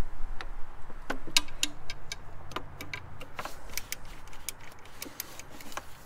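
Ratchet wrench with a 12 mm socket clicking in short, irregular runs of sharp ticks while loosening the bottom nut on a drive-belt tensioner.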